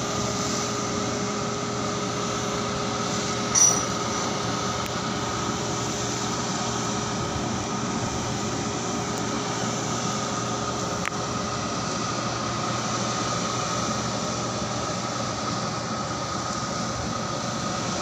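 Ship's deck crane machinery running with a steady hum and a high, even whine. A short, louder squeal comes about three and a half seconds in.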